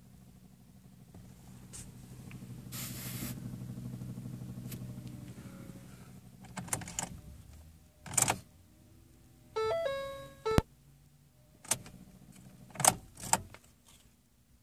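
A steady low hum that swells and then fades after about six seconds, followed by several sharp knocks and clicks and a short chime-like tone about ten seconds in.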